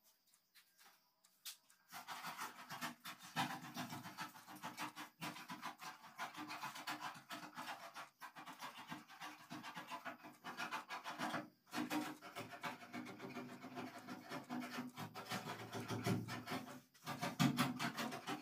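Paintbrush scratching back and forth over a car's metal bonnet in quick strokes, laying on light paint in streaks for a wood-grain finish. It starts about two seconds in and stops briefly twice, near the middle and near the end.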